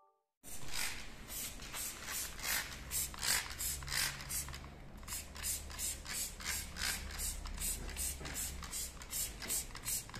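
Hand trigger spray bottle squirting foam engine-parts cleaner onto a crankshaft: a quick run of short squirts, about two a second, starting about half a second in.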